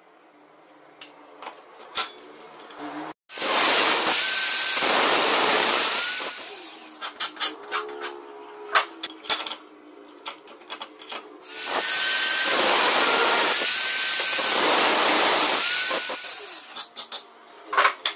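Power tool cutting into a steel flat bar held in a vise: two long runs of loud grinding, the first about three seconds in and the second, longer one starting about halfway through, each with a steady whine. Between and after them come scattered clicks and taps of the metal being handled.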